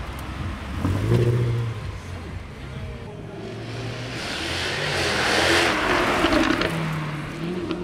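Two sports cars driving past: a Ferrari 360 Spider's V8 swells briefly about a second in, then a Jaguar F-Type coupe goes by with a louder rushing engine and tyre noise that builds and fades between about four and seven seconds.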